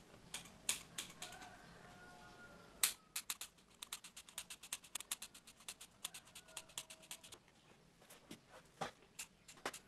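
Steel scissors snipping repeatedly through foam sponge as it is trimmed into a rounded banana shape: a run of small sharp clicks, several a second, with one louder snap about three seconds in.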